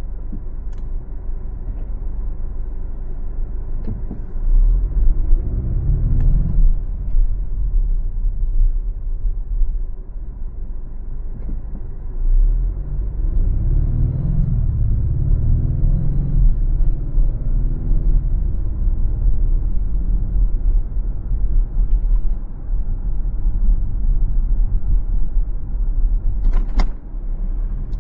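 Car driving on a city street: steady low road and engine rumble, growing louder twice with a pitch that rises and falls, and a single sharp click near the end.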